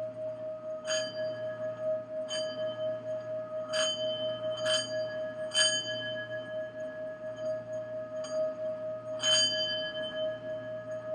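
Singing bowl sustaining one steady, gently pulsing tone. Over it, six higher metallic strikes ring out and fade at uneven intervals, the loudest about halfway through and again near the end.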